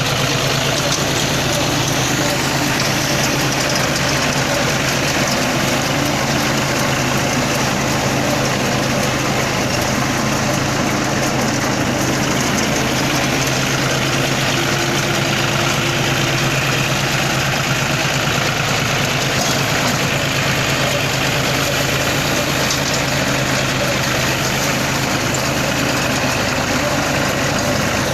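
Tractor engine running at a steady speed, driving a round straw baler.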